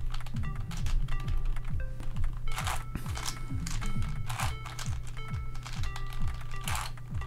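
Quick plastic clicks and clatter of a WitEden 3x3x9 cuboid puzzle's layers being turned by hand while it is scrambled, over background music with a steady beat.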